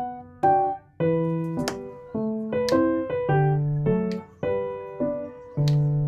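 Background piano music: a slow run of chords, each struck and left to ring out before the next.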